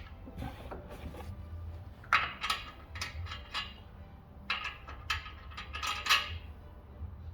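Steel lug nuts clinking as they are handled and spun by hand onto the wheel studs, in two bunches of light metallic clicks.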